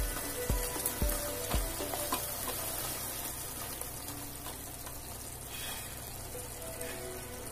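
Chicken curry sizzling in a metal pot while a ladle stirs it, the ladle knocking against the pot about twice a second for the first two seconds. After that only a steady sizzle.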